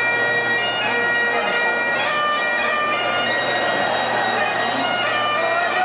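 Bagpipes playing a tune over their steady drone, above the dense noise of a large stadium crowd.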